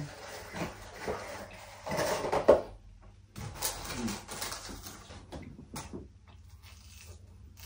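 Rustling and clattering of a food box or packaging being handled, in irregular bursts; the loudest comes about two and a half seconds in, and it fades to a few faint clicks near the end.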